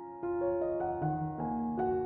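Background piano music: soft, slow notes and chords, a new note about every half second, each left ringing.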